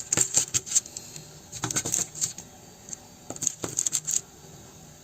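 Potato masher pressing boiled potatoes flat on a parchment-lined baking tray, clinking and tapping against the tray in three short bursts.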